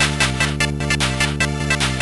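Amiga demo soundtrack: electronic music with a fast, even beat over a repeating bass line.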